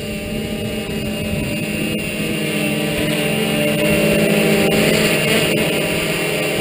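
Tarot FY680 hexacopter's six brushless motors and 12-inch carbon propellers buzzing as it hovers carrying a 1.5 kg load, getting louder about halfway through as it comes in close overhead.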